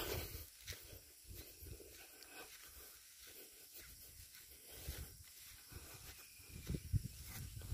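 Faint footsteps and rustling through grass under a low, uneven rumble of a handheld phone microphone, with a few soft knocks about five and seven seconds in.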